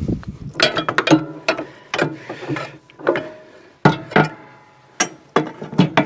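Irregular clicks and clanks of a PTO driveshaft and its shielding being handled and fitted together, some knocks with a short metallic ring.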